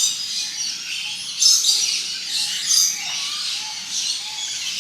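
A flock of lories and lorikeets calling in an aviary: many shrill, overlapping high calls and squawks, louder bursts at the start and about one and a half and two and a half seconds in.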